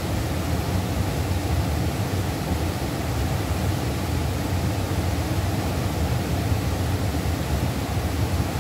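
River water rushing steadily: a constant, even noise, deepest and strongest low down, with no breaks or single sounds standing out.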